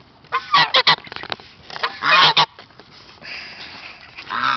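Grey domestic goose honking: a quick run of short honks about half a second in, then a longer honk about two seconds in.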